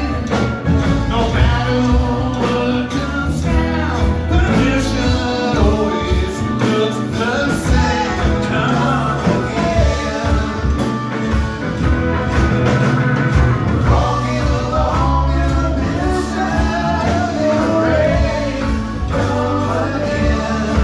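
Live rock band playing: electric guitars, electric bass, drums and keyboards, with a lead vocal singing over them.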